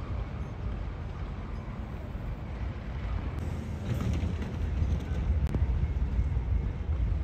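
Outdoor harbour ambience: a low, noisy rumble with wind buffeting the phone microphone, growing somewhat louder about four seconds in, with a faint click about five and a half seconds in.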